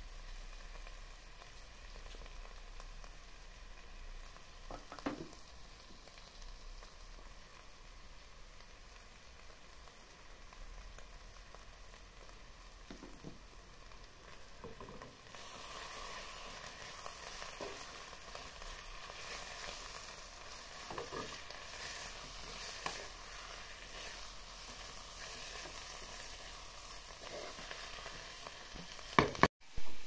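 Food frying in a pan: a steady sizzle that gets louder about halfway through, with occasional light knocks and two sharp, loud knocks near the end.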